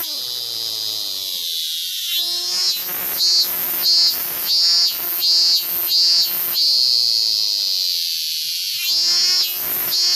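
Male Minmin cicada (Hyalessa maculaticollis) calling: a steady high drone that breaks into runs of pulsed "min-min" notes about two a second, goes back to the drone, and starts pulsing again near the end.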